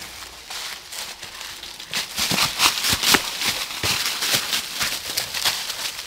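Footsteps crunching through a thick layer of dry fallen leaves as a person walks across a gully and starts scrambling up a leaf-covered slope. Quieter rustling at first, then distinct crunching steps from about two seconds in, roughly two or three a second.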